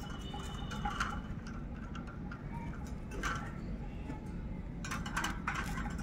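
Rose-ringed parakeet climbing about a wire cage: a few scattered light clicks and taps of beak and claws on the metal bars, over a steady low rumble.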